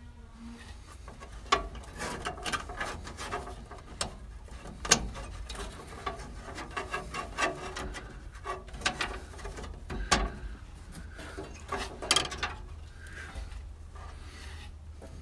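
Hands handling parts on a truck's frame rail: scattered light clicks, taps and rubbing as the wires and fittings of a newly mounted electric fuel pump are worked on. A few sharper knocks stand out, the loudest about five and ten seconds in.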